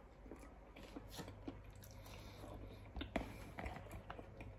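Faint chewing of raw seafood, with a few soft clicks and taps from handling the food; the clearest ones come a little after three seconds in.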